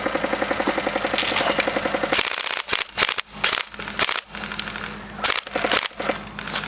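Airsoft electric rifle firing a long full-auto burst, a very fast, even rattle of shots. After about two seconds it gives way to shorter, irregular bursts and single sharp shots with gaps between them.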